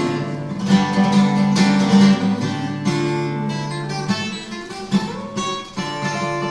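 Instrumental break in a song: acoustic guitar strummed and plucked, notes ringing between strokes.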